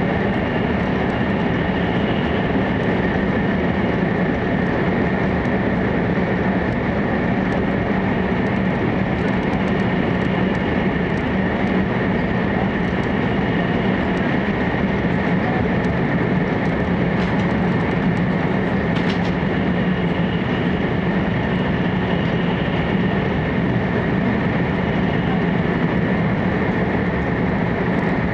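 JR East E4 Series Max Shinkansen running at speed through a long tunnel, heard from inside the passenger car: a loud, steady running noise with a constant low hum and a higher steady tone over it.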